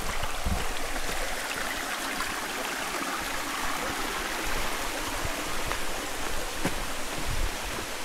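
A stream rushing and trickling steadily, strongest around the middle, with a few soft footfalls on the dirt path and planks.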